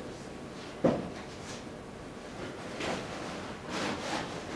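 A single sharp knock about a second in, followed by a few faint rustles and handling noises over steady room hum.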